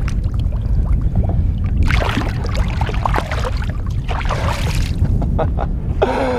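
Water splashing and sloshing as a freshly released musky swims off, over a steady low rumble of water and wind on the microphone. Louder splashy rushes come about two seconds in and again around four and a half seconds.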